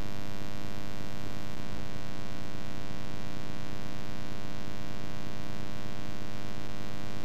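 Steady electrical buzz with many overtones, unchanging in pitch and level: mains hum picked up in the tape transfer while the picture is blank.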